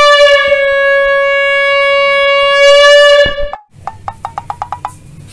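Pink plastic toy horn blown in one loud, steady note lasting about three and a half seconds, then cut off. A quick run of about eight short clicks follows.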